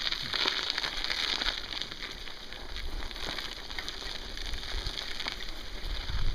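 Mountain bike tyres rolling over snow: a steady crackling crunch with many small clicks. A low rumble comes in near the end.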